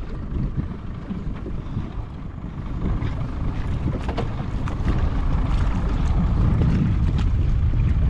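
Wind buffeting the microphone on open water, a deep, uneven rumble that grows louder about three seconds in, with a few faint ticks over it.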